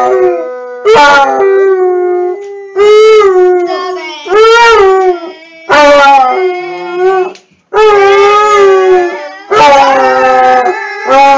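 Basset hound howling, a series of about six drawn-out howls, each about a second long and bending slightly up and then down in pitch, with short breaths between them.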